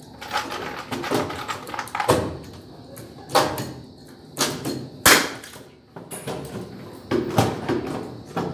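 Irregular knocks and scraping as ceiling boards and metal framing are handled and fitted, with the sharpest knock about five seconds in.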